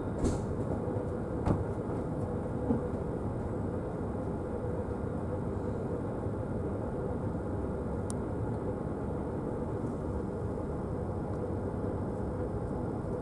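Steady low rumble of a passenger train carriage rolling slowly over the rails, heard from inside the car, with three short sharp clicks near the start, about a second and a half in, and about eight seconds in.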